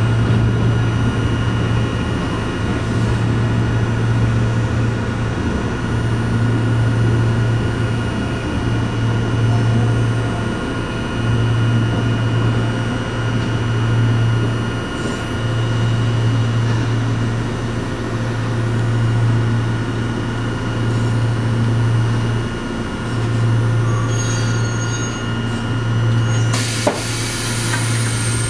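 Inside the cabin of a Fukui Railway 770-series tram as it creeps into the terminus platform: a loud low hum that swells and dips every couple of seconds, over a faint steady whine. Near the end comes a burst of hissing noise with a click.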